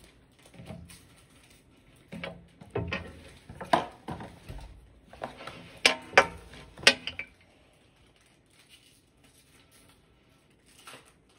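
Crinkling and crackling of a Panini trading card pack's wrapper being torn open, in a flurry of sharp crackles that stops about two thirds of the way through.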